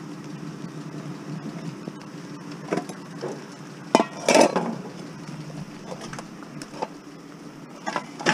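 A metal cooking pot and other scrap being handled: a few scattered knocks, then a louder clatter of metal about four seconds in and another knock near the end.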